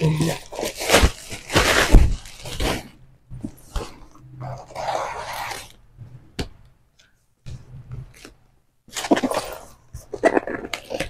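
A cardboard shipping box and plastic packaging being handled and opened by hand: irregular rustling, crinkling and scraping, with a few sharp knocks.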